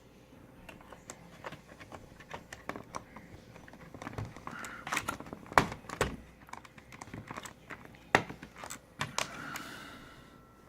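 Small plastic clicks, taps and rattles of automotive relays being handled and pressed into their sockets in a Ford fuse panel, with a few sharper snaps about halfway through and again near eight seconds.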